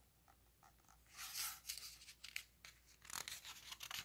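Page of a hardcover picture book being turned: a soft paper swish about a second in, followed by a run of faint crinkling ticks.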